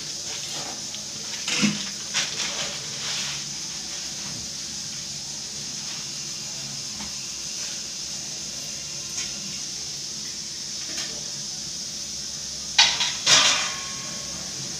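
Steady hiss from the lit gas stove, where a pressure cooker and an open steel pot sit on the burners. It is broken by a few sharp clinks and knocks of kitchen utensils, the loudest a short cluster near the end.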